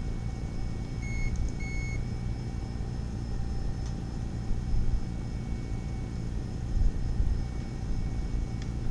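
Two short, high electronic beeps about a second in, over a steady low hum.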